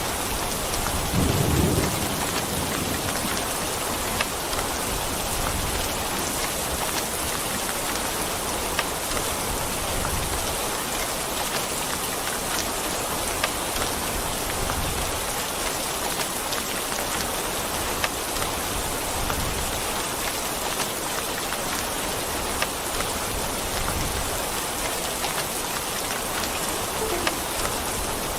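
Steady heavy rain hissing on a surface, with scattered drop ticks. A short, louder rumble of thunder comes about a second in, and fainter low rumbles come and go later.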